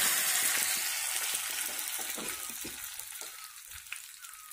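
Curry leaves sizzling and crackling in smoking-hot oil in a small tempering ladle with mustard seeds and dried red chillies. The sizzle is loud at first and dies down steadily.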